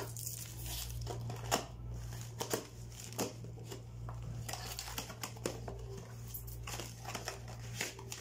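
Plastic wrap crinkling and a cardboard box being handled and slid open, in irregular short rustles and clicks, over a steady low hum.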